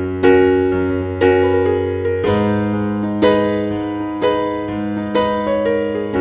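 Background music: piano chords struck about once a second, each ringing on and fading before the next.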